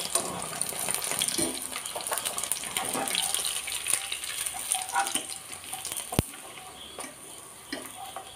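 Chicken pieces frying in coconut oil with a steady sizzle, while a wire spider strainer scrapes and clicks against the non-stick pan as the pieces are scooped out. There is one sharp tap about six seconds in, and the sizzle eases near the end.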